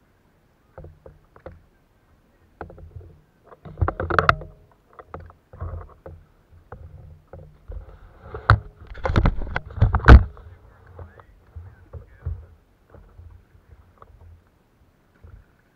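Knocks and bumps on the plastic hull of a sit-on-top kayak as the paddle is worked and then laid down across the boat, with water sloshing at the hull. There is a cluster of sharp knocks about four seconds in and a louder run of bumps around nine to ten seconds in.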